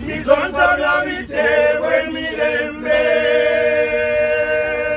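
A group of men singing together a cappella in Luganda, with no instruments. The opening notes are short and uneven, then the voices hold long, steady notes from about three seconds in.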